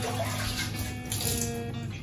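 Water splashing as a hand works a mesh bath sponge in a basin of water, mostly in the first half, over background music with steady sustained notes.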